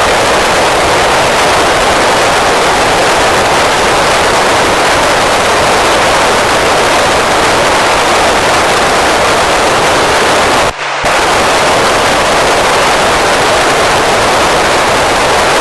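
Steady, loud FM receiver static hiss from an Icom ID-5100 tuned to the PO-101 satellite's 70 cm FM downlink while no station is transmitting. The hiss cuts out briefly about eleven seconds in.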